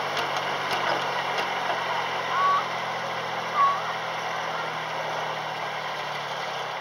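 Miniature railway train running: the locomotive's steady low engine hum under a constant rolling rattle of wheels on rail. The hum stops near the end as the train comes to a halt. Two brief chirps sound partway through.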